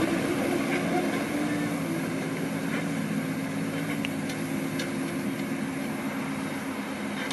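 Kobelco SK045 mini excavator's diesel engine running steadily while it works its boom and bucket, with the engine note dipping slightly about two seconds in and a few faint clicks.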